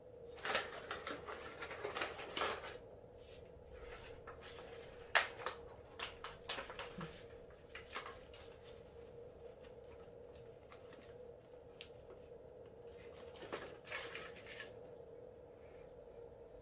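Gloved hands working a thin black plastic seedling tray and potting soil. Rustling and crinkling bursts of plastic come with scattered sharp clicks, the loudest about five seconds in, and there is another rustle near the end.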